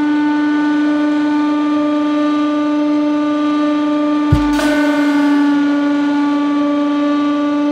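Hydraulic press pump running with a steady hum as the ram descends. About four seconds in comes one sharp knock as the ram meets the hard steel ball, and the hum shifts slightly under load while the press pushes at about 150 bar without crushing the ball.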